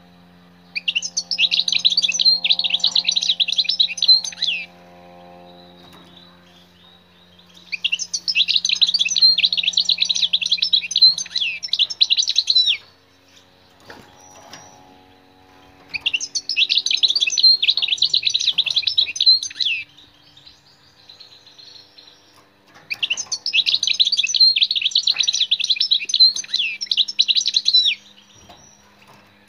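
European goldfinch singing: four bursts of rapid, tinkling twitter, each about four to five seconds long, with pauses of about three seconds between them.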